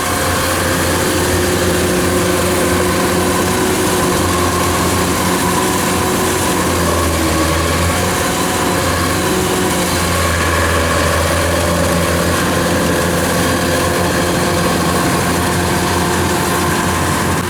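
Large farm machine's engine running steadily with a low, even drone and a slight dip in pitch about seven seconds in.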